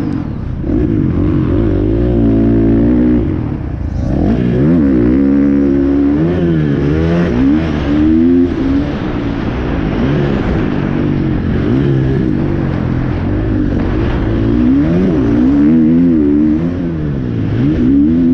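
Motocross dirt bike engine heard close from the bike itself, revving up and down over and over as the rider opens and closes the throttle and shifts through the gears around the track.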